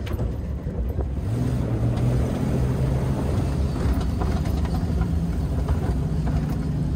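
A vehicle engine running steadily, with wind noise on the microphone. Its low note comes in clearly about a second in and holds.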